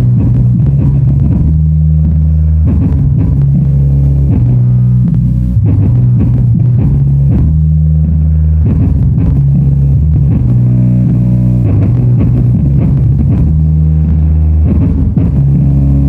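A song played loud through two subwoofers driven by an STK4141 stereo amplifier with a bass-treble preamp. Deep, sustained bass notes dominate, with drum beats over them and very little treble.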